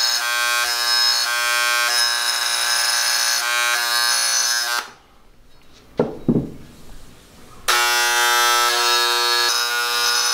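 Electric vibrating engraving pen buzzing steadily as identification marks are etched into steel connecting rods. It stops a little under halfway through, with a couple of brief knocks in the pause, then starts buzzing again for the last few seconds.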